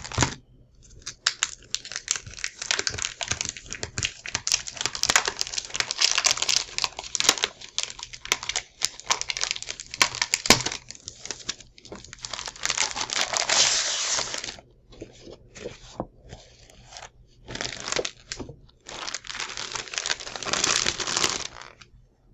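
The wrapping of a 12x12 scrapbook paper kit being torn open and handled, crinkling and crackling in long bursts with sharp snaps, pausing briefly a few times in the second half.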